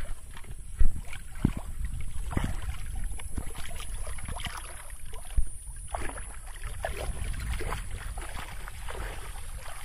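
Water splashing and sloshing as someone wades through a shallow pond, pushing an aluminium basin along the water, with a sharp knock a little under a second in.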